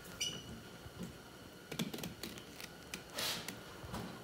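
Fillet knife slicing a walleye fillet away from its rib cage: a scatter of small, crisp clicks and ticks, with a short scraping rasp a little past three seconds in.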